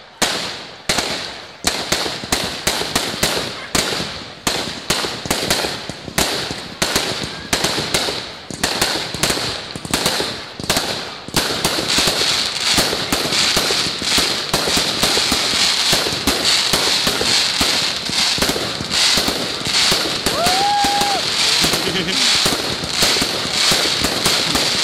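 Consumer firework cake firing: shots launching and bursting in quick succession, two or three a second, then merging into a dense, almost unbroken barrage from about halfway through.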